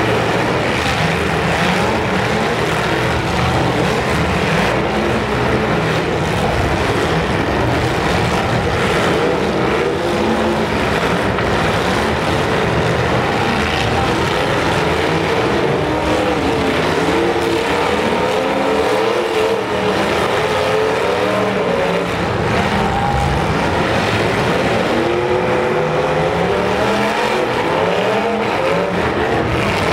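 Several demolition derby cars' engines revving hard at once, their pitch repeatedly rising and falling as the drivers accelerate and back off, with the knocks of cars colliding mixed in.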